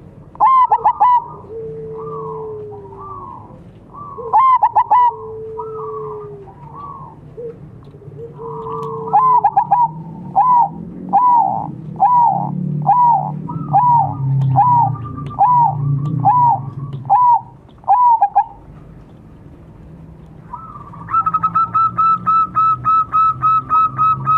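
Zebra doves cooing back and forth: long, slightly falling low notes alternate with the higher, clipped staccato coos of the zebra dove's song. The coos come in an even series roughly every half second, and near the end a fast run of about four notes a second.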